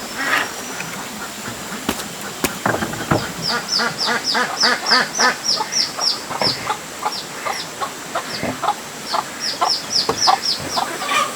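Chickens calling: a rapid run of high, falling peeps from about three seconds in to near the end, over softer clucks. Two sharp knocks about two seconds in.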